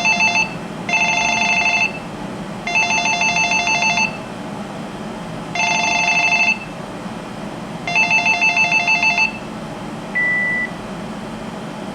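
Cordless phone playing a warbling electronic ring tone in five short bursts with uneven gaps: its ringer being sampled in the settings. About ten seconds in comes a short single beep, then another near the end.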